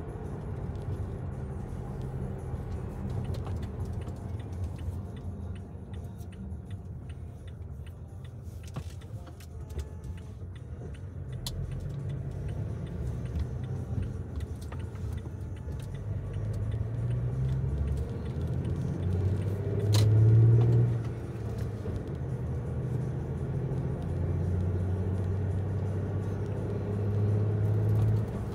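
Low, steady rumble of a road vehicle on the move. It grows louder in the second half, with a brief louder swell about twenty seconds in.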